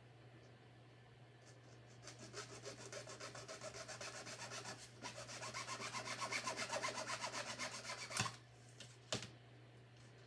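A loose saw blade sawing quickly back and forth through a tube of white lithium grease to cut it open: a fast, even scraping that stops briefly midway, then grows louder. Two sharp clicks come near the end.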